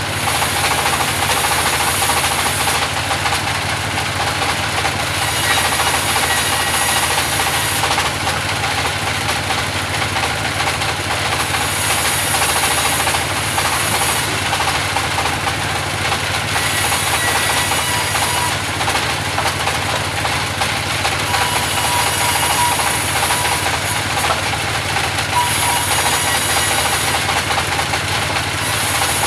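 Engine-driven sawmill saw (gergaji selendang) running steadily while cutting wood. A high hiss swells and fades every few seconds over the steady machine noise.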